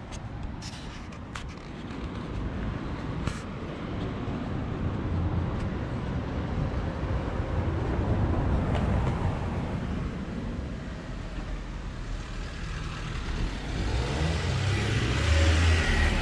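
Road traffic: motor vehicles passing, the rumble growing steadily louder as a vehicle approaches near the end.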